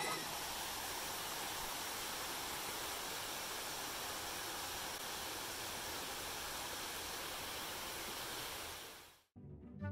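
Steady, pouring rain, an even hiss that fades out near the end.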